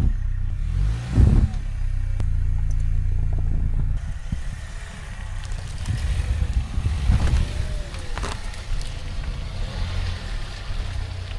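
Car engine running, just started, with a brief rise in revs about a second in, then running steadily at idle.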